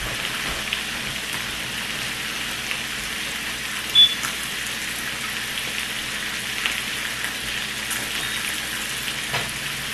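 Bacon sizzling in a frying pan: a steady crackling hiss, with one short high blip about four seconds in.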